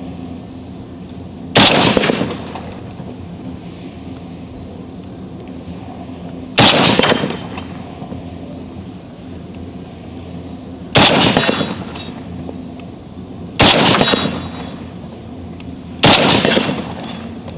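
Five shots from a PSL-54R semi-automatic rifle in 7.62x54R, a few seconds apart, each followed by the ringing clang of the bullet striking a hanging steel plate.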